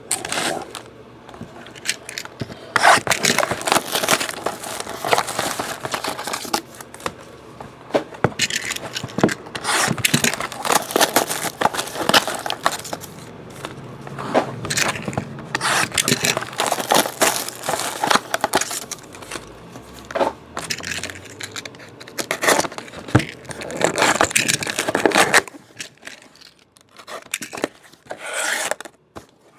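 Cardboard trading-card boxes and foil-wrapped packs being handled: irregular scraping, rustling and crinkling as the packs are pulled out of the boxes, dying down near the end.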